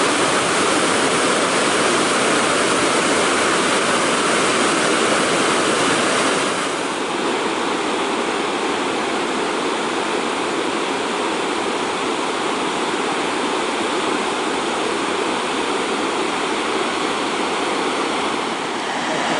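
Large waterfall: a loud, steady rush of heavy falling and churning water. About a third of the way in it turns slightly softer and duller.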